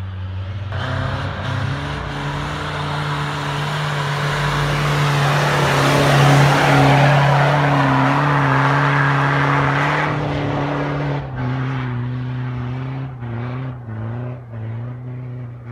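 Off-road 4x4's diesel engine held at high revs under load, with a loud rushing of spinning tyres flinging snow and mud that builds to a peak about halfway through and stops at about ten seconds. After that the engine revs rise and fall in short surges.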